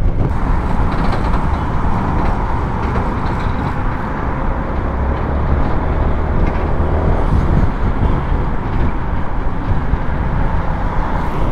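Honda Forza 250 scooter riding slowly in dense traffic: its single-cylinder engine running steadily under a constant hiss of road and traffic noise.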